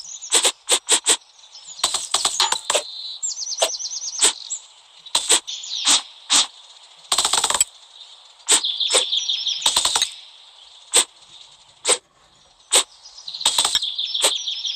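A blade slicing through something crisp: a string of sharp cracks and snaps at uneven intervals, some in quick runs, with scratchy scraping between them.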